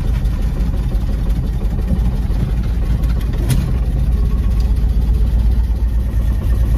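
1957 Chevy Bel Air's six-cylinder engine running as the car drives, heard from inside the car as a steady low rumble, with a single click about three and a half seconds in.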